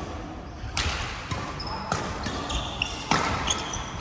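Badminton rackets striking the shuttlecock during a rally: three sharp hits roughly a second apart, with a few short high squeaks between shots.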